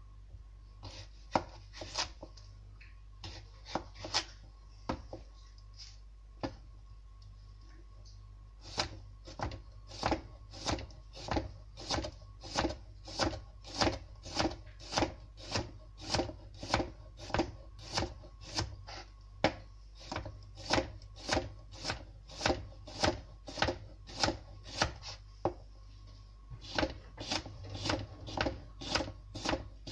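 Kitchen knife chopping cucumber on a plastic cutting board: a few scattered strokes at first, then steady chopping at about two strokes a second, with a short pause near the end before it resumes.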